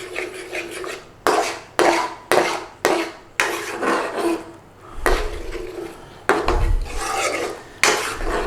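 Chef spoon scraping and stirring through a thick yogurt curry in a pan: a run of quick strokes about half a second apart, then longer scrapes.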